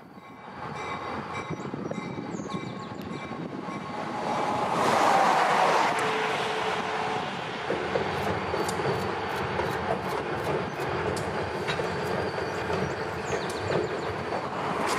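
Freight train led by a pair of four-axle EMD diesel locomotives passing, growing louder to a peak about five seconds in. From about eight seconds in, the wheels click steadily over the rail joints as it crosses the bridge.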